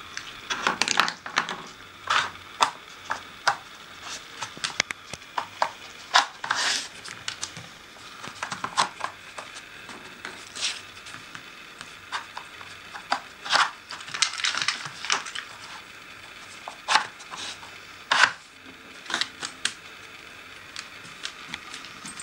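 Dog working a Nina Ottosson plastic treat puzzle with paws and nose: irregular clicks, knocks and clatter as the plastic sliding tiles and pegs are shoved about on a wooden floor, with a few louder knocks.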